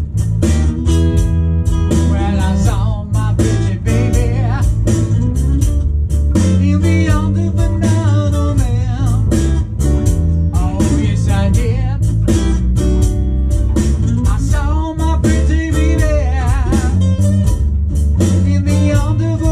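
A blues song played on a cigar box guitar and an electric bass, with a heavy bass line and a sung vocal line over it.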